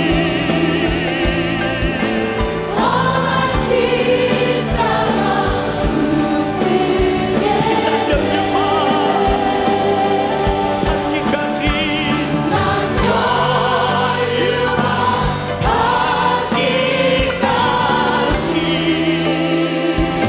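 Church choir singing a hymn with band accompaniment, voices held with wide vibrato over a steady drum beat.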